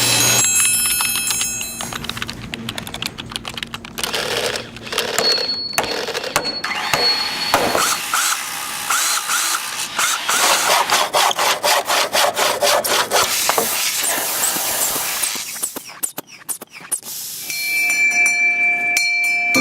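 A run of different work sounds, mostly power tools and tool noise. About two seconds in there is rapid clicking. A thin high steady beep follows a few seconds in. Fast, evenly repeated strokes come near the middle, and steady pitched tones come in near the end.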